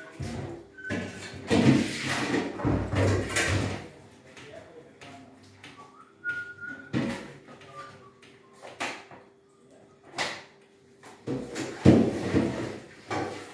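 Metal pots and bowls knocking and clattering at a kitchen sink, with stretches of splashing water, loudest in the first few seconds and again near the end.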